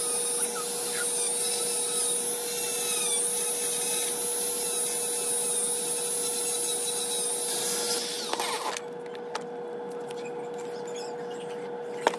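Dremel rotary tool running with a steady high whine as it cuts and shapes a rubber top-lift piece, stopping about eight seconds in after a short louder burst. A click near the end.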